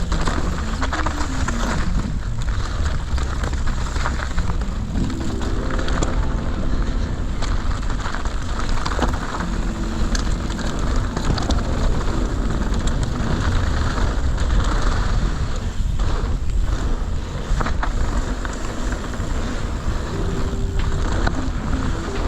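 Steady wind rush on the microphone with the deep rumble and clatter of a Norco Shore downhill mountain bike's tyres running fast over a rough trail. A few short wavering tones come through about six seconds in and near the end.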